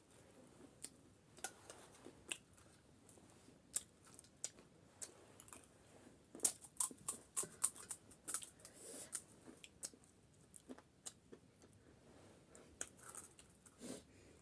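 Crisp, irregular crunches and clicks of chatpate, a crunchy spiced puffed-rice snack, being chewed close to the microphone, thickest around the middle.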